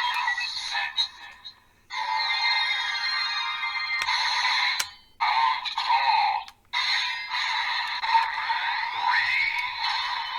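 DX Desire Driver toy belt playing the Claw raise buckle's electronic music, sound effects and voice calls through its small speaker, thin-sounding with no bass. The sound comes in several bursts with short breaks, and a few sharp clicks from the buckle being worked fall between them.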